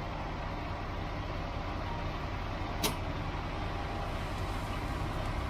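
Steady low rumble, with one short, sharp hiss of air about three seconds in, from air-filling a semi truck's tire with an air hose and chuck.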